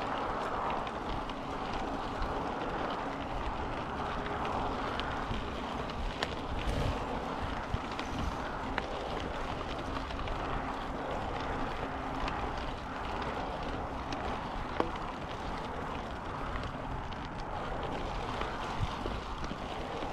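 Yeti SB5 full-suspension mountain bike rolling along a dirt trail: steady tyre and wind noise on the microphone, with scattered clicks and rattles from gravel and the bike.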